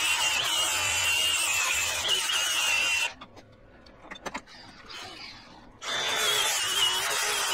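Cordless angle grinder grinding steel: a harsh grinding noise with a high, wavering whine. It stops about three seconds in, a few light clicks follow, and it starts grinding again near the end.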